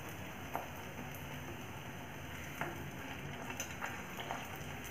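Slice of bread deep-frying in hot oil in a kadhai over a high flame: a steady sizzle, with a few light taps from a spatula against the pan.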